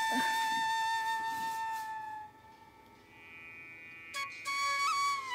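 Background music: a flute melody holding one long note that fades out about two seconds in, then picking up again with a few short, bending notes near the end.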